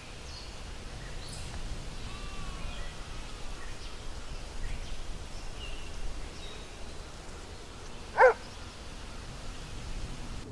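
Outdoor ambience with faint bird chirps, and one short dog bark about eight seconds in, by far the loudest sound.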